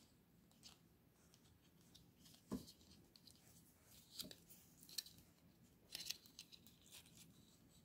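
Faint handling noises: a few scattered light clicks and rustles of wires and a plastic battery case as the wires are pushed through a tight hole in the case. The loudest is a soft knock about two and a half seconds in.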